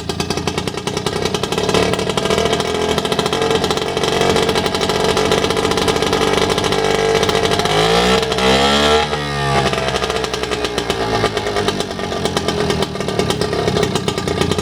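Engine of a c.1950 British Seagull 102 outboard, a single-cylinder two-stroke, running steadily. It is opened up about two seconds in and held there, then throttled back to a slower, quieter run about nine and a half seconds in.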